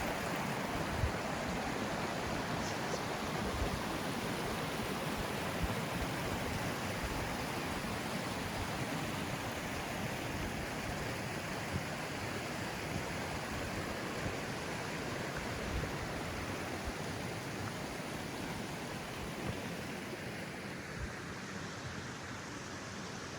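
Steady rush of a mountain stream's flowing water, easing off a little near the end, with a few brief low thumps.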